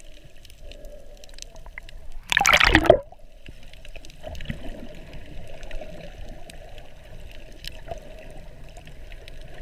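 Underwater sound heard by a submerged camera: muffled water movement with faint scattered clicks, and one loud rushing burst of water about two seconds in that lasts under a second.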